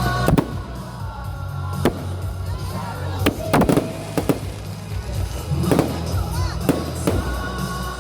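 Festive fireworks shells bursting in a string of sharp bangs, roughly one a second, some followed by a short crackle, over music playing through loudspeakers with a steady bass.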